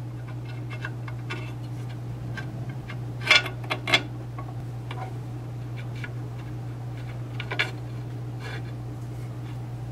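Light metallic clicks and clinks of the reverse idler gear and its shaft being fitted into a Borg-Warner T90 transmission case, with a sharper pair of clinks about three and four seconds in and another about three quarters through. A steady low hum runs underneath.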